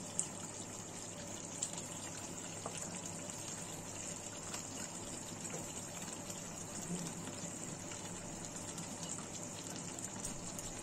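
Chicken korma gravy simmering in a kadai over a gas burner: a steady hiss, with a few soft clicks from a wooden spatula in the pan.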